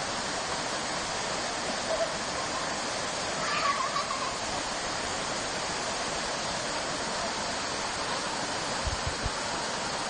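Waterfall: a steady rush of falling water. A brief call rises above it about three and a half seconds in.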